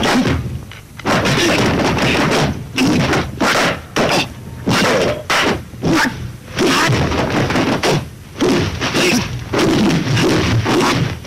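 Kung fu film fight soundtrack: a rapid run of dubbed punch and slap sound effects, whacks and thuds following one another in quick succession.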